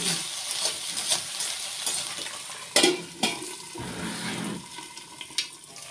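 Pigeon meat and potatoes sizzling in a wok as a metal spatula stirs and scrapes them. About three seconds in, the spatula clanks sharply on the wok twice. Then water is poured into the hot pan with a short rushing hiss, and the glass lid is set on with a light click.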